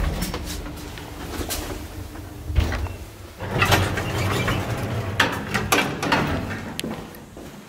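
Old KMZ passenger lift: the car's low hum dies away at the start, then its automatic sliding doors run shut, with a knock about two and a half seconds in, a rumble of the door drive, and clanks and clicks as the doors close.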